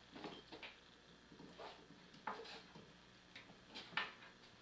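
Faint, irregular knocks and clicks, about eight over a few seconds, from a wooden banister rail being worked on by hand with a tool while it is taken apart.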